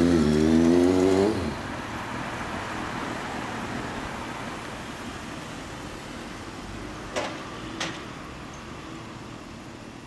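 Suzuki GSX400S Katana's four-cylinder engine, breathing through a WR'S aftermarket silencer, accelerating away with its note climbing in pitch through the first second and a half. It then falls back to a fading engine and traffic hum. Two short sharp clicks come near the end.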